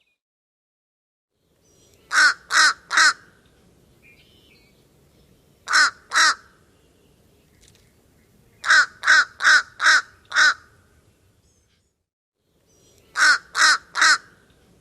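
A crow cawing: harsh, evenly spaced caws in groups of three, then two, then five, then three, with short pauses between the groups.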